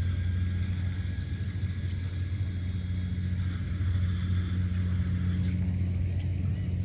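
A steady, low-pitched engine hum. Over it runs a faint high whine that cuts off suddenly about five and a half seconds in.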